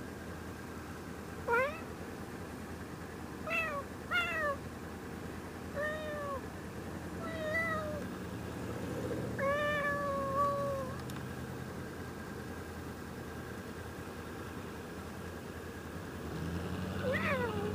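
A cat meowing over and over: short rising-and-falling meows every second or two, a longer drawn-out one about ten seconds in, and more near the end, over the low hum of a sport motorcycle's engine idling.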